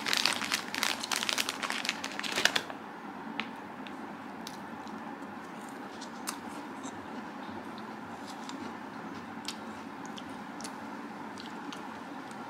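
Dense crinkling and crumpling, as of something being handled, for about the first two and a half seconds. It stops suddenly, leaving a steady low hum with a few faint ticks.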